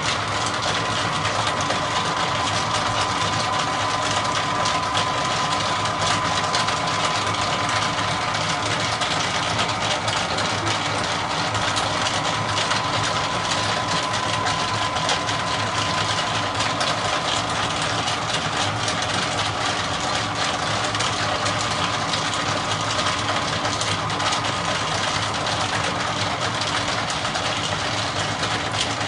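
Model train running on track: a steady mechanical hum with a high whine over it and faint ticking, with no pause.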